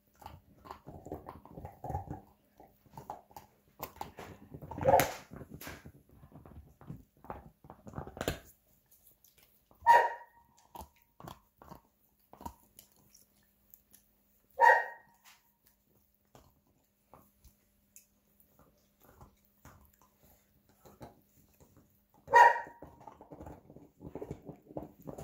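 Schnauzers gnawing on bones, a scatter of small crunching clicks, broken by four short, loud dog barks spaced several seconds apart.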